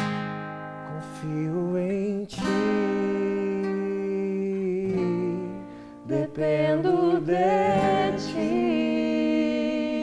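Acoustic guitar and a man's singing voice. A chord is strummed at the start and rings on, then he sings long held notes that slide and waver over the guitar.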